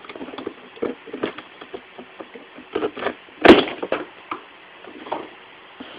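Cardboard box being cut open with a knife: a string of short scrapes, clicks and rustles, with one sharp, loud crack about three and a half seconds in.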